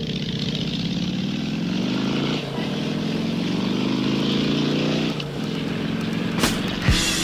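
Motorcycle engine accelerating: its pitch rises, drops at a gear change about two and a half seconds in, rises again through the next gear, then falls back about five seconds in.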